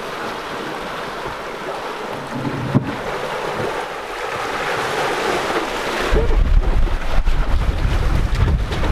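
Water rushing and splashing past the hulls and wake of a sailing catamaran under way at sea. From about six seconds in, wind buffets the microphone heavily.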